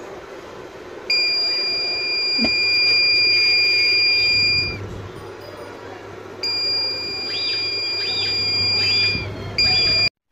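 Electronic alarm buzzer of a home-made PIR motion-sensor security alarm, switched by a relay, sounding a steady high-pitched tone in three blasts: about three and a half seconds, then about three seconds, then a short half-second one near the end.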